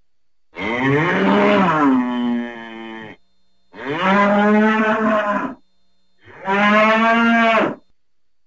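A bull mooing three times: loud, drawn-out calls, the first and longest wavering in pitch before trailing off lower, the next two shorter and steadier.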